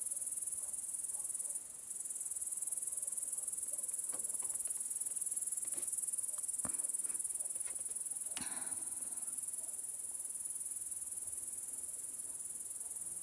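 Steady, high-pitched chirring of an evening insect chorus in the grass, with a brief dropout just before two seconds in. A couple of faint short rustles come around seven and eight and a half seconds in.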